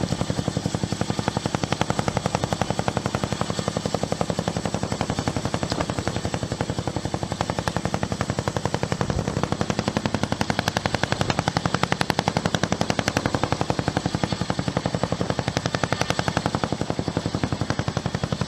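Boeing CH-47 Chinook tandem-rotor helicopter running, its rotor blades beating in a rapid, even slap with a steady high whine over it.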